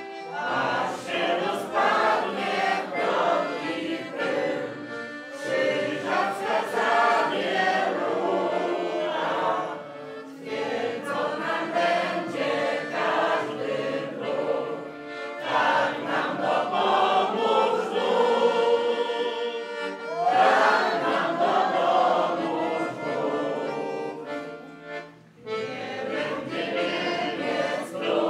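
A small amateur choir of men and women singing a song together, in phrases broken by short pauses about every five seconds.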